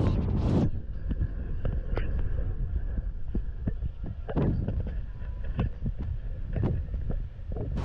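Wind rumbling on the microphone, with a walker's footsteps as short regular clicks, about two to three a second. A louder rush of noise cuts off within the first second.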